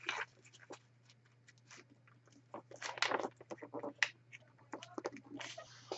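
Sheet of paper being folded and creased by hand: irregular crinkles and scrapes, sparse at first and busier from about halfway, over a faint steady low hum.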